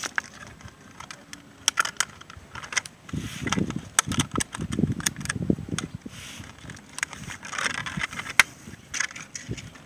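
Plastic parts of a homemade PVC fish trap being handled: sharp clicks and crinkling as a clear plastic funnel is worked into a slotted black plastic basket, with dull low bumps in the middle.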